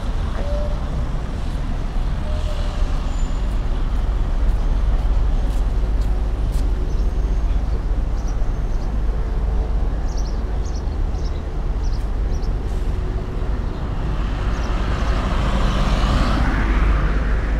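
City street traffic: a steady low rumble, with a car passing close by near the end, its tyre and engine noise swelling up and then fading.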